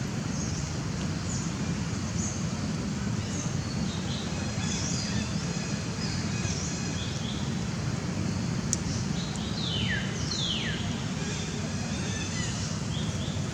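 Short, high chirping animal calls scattered over a steady low rumble, with two quick calls falling in pitch about ten seconds in and a single sharp click shortly before them.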